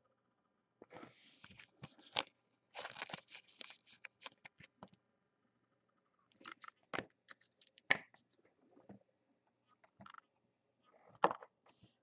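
Trading cards being handled: short rustles, scrapes and clicks of card stock sliding and tapping, in clusters with pauses and the sharpest click near the end.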